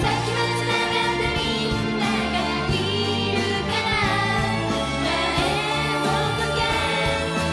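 Female J-pop idol vocalists singing a song live, backed by a live band.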